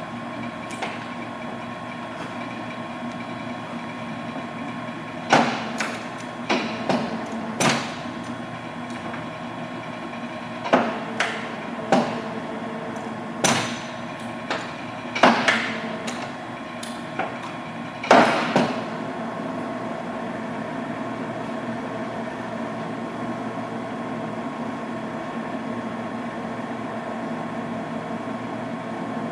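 1942 Monarch 16CY engine lathe running with a steady hum of several tones, its speed being raised. Between about 5 and 19 seconds in, a dozen sharp metallic clunks and clicks come as the gear levers are shifted.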